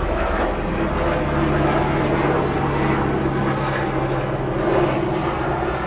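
Steady mechanical drone with a low hum.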